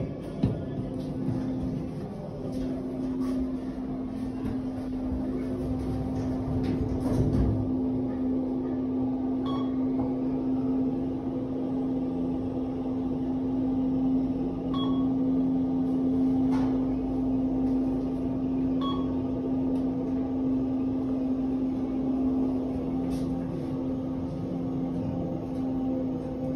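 Steady hum of a Kone EcoDisc gearless traction elevator car travelling up between floors, growing louder about two seconds in. A few short high beeps sound along the way.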